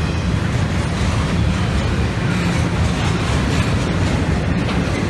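Double-stack intermodal freight cars rolling past: a steady rumble of steel wheels on the rails.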